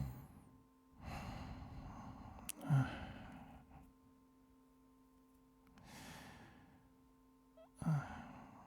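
A man's heavy, laboured breathing, as of someone sick: about four long breaths, two of them ending in a short, low voiced sigh.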